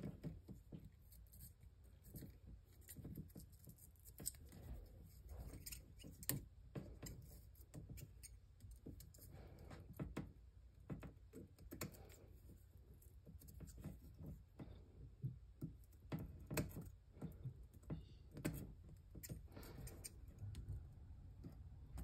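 Electrician's scissors snipping at the end of a shielded Cat8 cable: faint, irregular clicks and snips, with small handling noises from the wire and foil.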